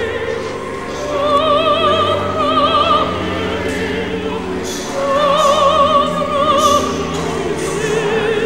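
Opera music: a high voice sings with wide vibrato in two long held phrases, one starting about a second in and one about five seconds in, over a steady lower accompaniment.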